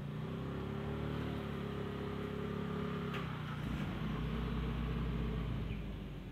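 Small pickup truck's engine running, louder and lower from about four seconds in as it pulls away, then fading near the end. A single sharp knock about three seconds in.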